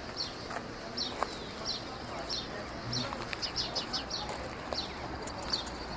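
Small birds chirping: a string of short, high chirps, each falling in pitch, coming closer together about three and a half seconds in.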